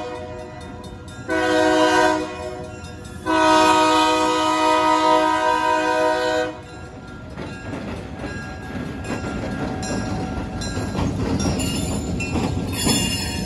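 Diesel switcher locomotive's air horn blowing for a grade crossing: a long blast ends at the start, then a short blast about a second in and a long one of about three seconds. After that the locomotive's engine and wheels rumble, growing louder as it rolls through the crossing.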